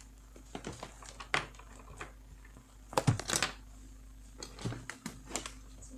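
Scattered light clicks and knocks of hands handling a laptop and its power cable while it is being powered up, with a cluster of sharper clicks about three seconds in.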